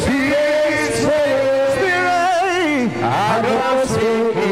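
A man's voice, amplified through a microphone, chanting worship in long wavering sung phrases with vibrato, over a low steady music bed.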